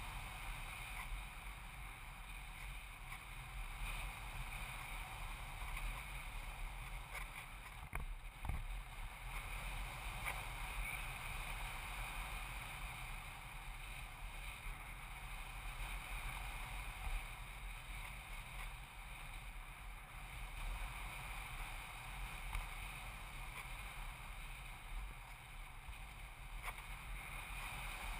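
Steady rushing airflow and buzz picked up by an onboard camera riding on a foam radio-controlled model plane in flight.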